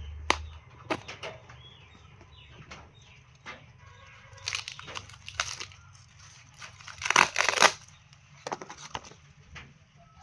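Irregular rustling and crackling handling noises with sharp clicks, the loudest burst about seven seconds in.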